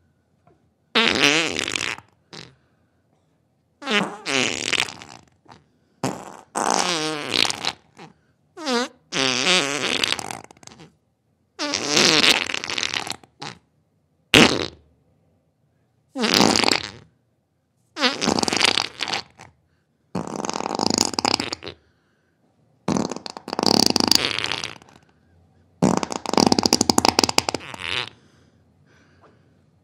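A series of about a dozen farts, each half a second to two seconds long with a wavering pitch, divided by short silences: flatulence as the sound of an upset stomach.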